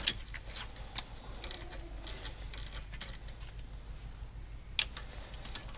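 A few faint, scattered clicks and taps of metal parts and hand tools being handled during the cylinder-head strip-down, with one sharper click a little before the end, over a low steady hum.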